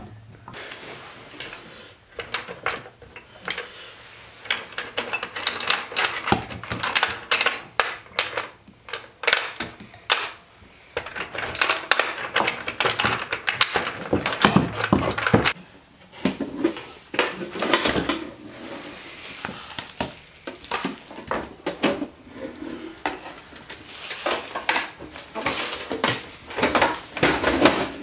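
Metal engine parts clinking and knocking as the transmission gear shafts and crankshaft are handled and seated by hand into a Honda Super Cub C90's aluminium crankcase half. The clicks and knocks come irregularly, some sharper and louder than others.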